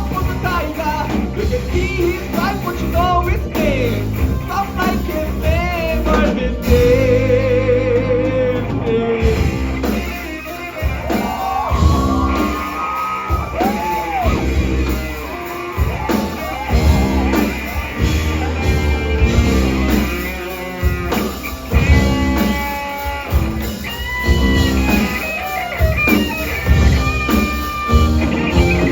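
Live rock band playing an instrumental passage, led by an electric guitar with bent, wavering notes over drums and bass guitar.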